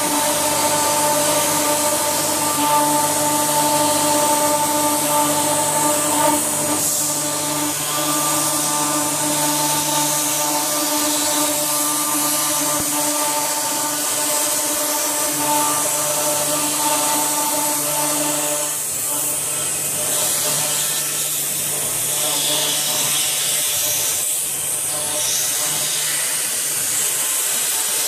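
CNC router running: a steady high hiss with a whine of several steady tones on top, and the whine stops about two-thirds of the way through while the hiss goes on.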